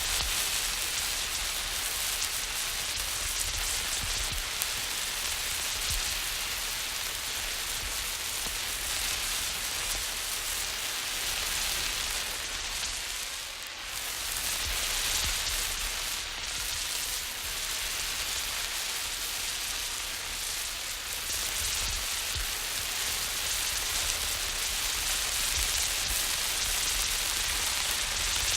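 Emergency flare burning with a steady hiss, briefly dipping about halfway through.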